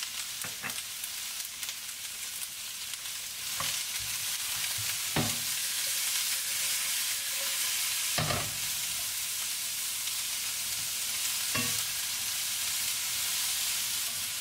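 Stir-fry vegetables sizzling steadily in a hot stainless steel sauté pan. A wooden spatula stirs them, knocking against the pan now and then, loudest about five and eight seconds in.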